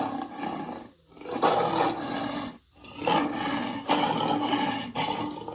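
A large animal giving a series of long, harsh calls, each about a second long with short breaks between them.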